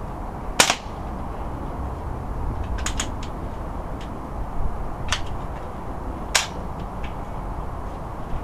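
A single crack of a Crosman M417 multi-pump .177 air rifle firing about half a second in, the loudest sound. It is followed by a series of sharp mechanical clicks as the rifle is worked by hand to pump and reload it, over a steady low background rumble.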